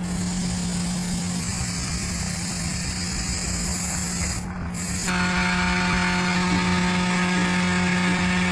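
A power tool running steadily with a constant hum under a hiss. About five seconds in, higher overtones join the hum. The sound cuts off abruptly at the end.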